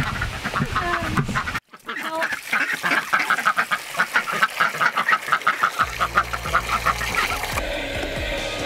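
Domestic ducks quacking in a quick, rapid run of calls, several a second, dying away near the end.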